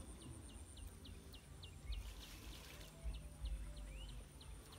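A bird calling a rapid series of short, falling whistled notes, about three or four a second, over an uneven low rumble. A brief splash of water about two seconds in, as hands work in the shallow stream.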